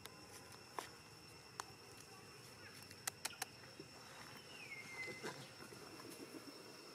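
Steady high-pitched insect drone, with a few sharp clicks in the first half and one short falling call about five seconds in.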